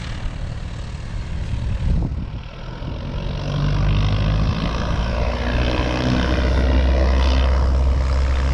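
A light propeller aircraft's engine running close by, getting louder from about three seconds in and then holding a steady low note.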